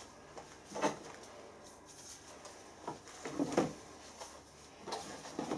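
Metal workshop parts being handled on a cluttered bench while a tapered roller bearing is picked up: a few short knocks and clinks about a second in, around three and a half seconds in and near the end.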